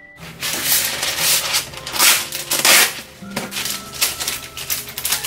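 Paper rustling and crinkling as hands handle and smooth a sheet of kitchen paper on a countertop, loudest around the middle, over soft background music.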